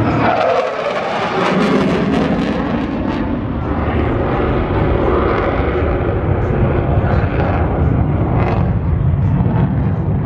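Loud, continuous jet noise from a USAF F-35A Lightning II's single afterburning turbofan engine (Pratt & Whitney F135) as the fighter flies its display overhead, with a falling sweep about a second in.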